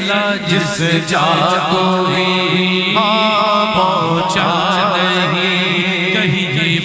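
Men singing a naat, an Urdu devotional song in praise of the Prophet: a lead voice carries a wavering, ornamented melody over a steady low drone.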